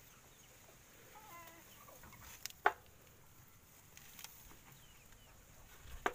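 Chickens clucking softly, with a sharp click or knock about two and a half seconds in and another near the end.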